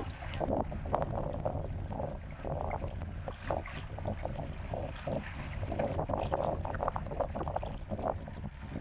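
Small waves lapping and splashing irregularly at the water's edge, over a steady low rumble of wind on the microphone.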